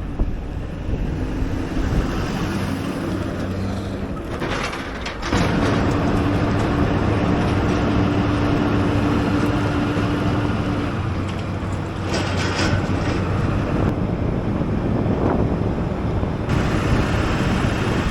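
Truck driving while towing a trailer: steady engine drone and road noise, which gets louder about five seconds in.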